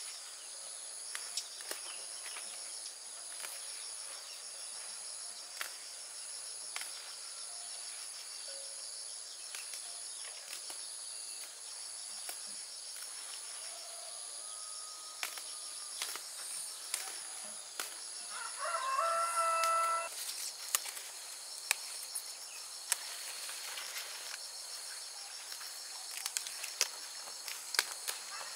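Insects droning steadily at a high pitch, with a chicken giving a short burst of clucking about two-thirds of the way in and a fainter call a little before. Scattered soft clicks and rustles of leafy vegetable stems being snapped off by hand.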